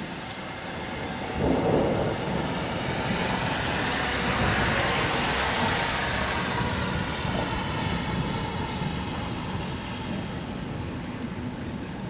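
Steady rain falling on wet pavement during a summer thunderstorm. About a second and a half in, thunder breaks and rolls, swelling with a broad hiss around the middle and then fading away.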